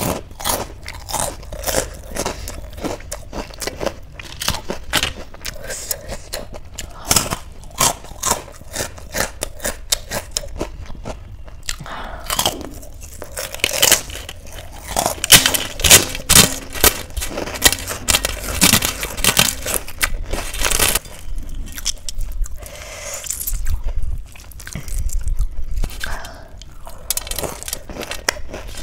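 Crisp papad (poppadom) being bitten and chewed: many sharp crunches and crackles, densest in the middle.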